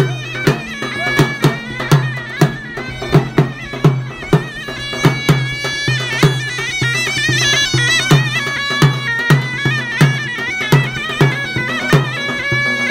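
Live davul and zurna dance music: the big double-headed davul struck with a beater in a steady, driving beat under the zurna's loud, wavering, ornamented melody.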